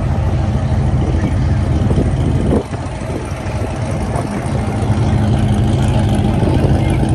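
Chevrolet C6 Corvette's V8 running as the car pulls away at low speed; the sound drops suddenly a little past two and a half seconds in, then builds again.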